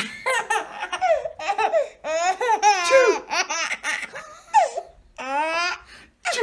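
A baby laughing hysterically: a string of short, high-pitched squealing laughs that rise and fall, broken by quick breaths in between.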